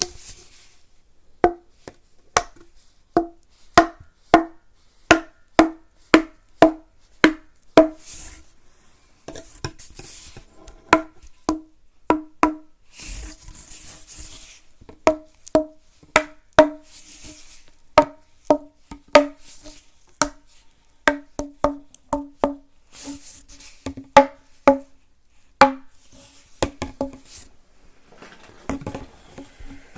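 ASMR tapping on a hollow, resonant object: a long, uneven run of sharp knocks, each with a short low pitched ring, about one or two a second and sometimes in quick pairs. A few soft brushing or rubbing sounds come in between.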